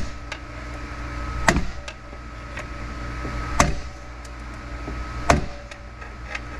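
Hammer blows inside a TH350 automatic transmission case: three sharp strikes about two seconds apart, bending and flattening a spring at the stuck snap ring to relieve its tension so the ring will come out.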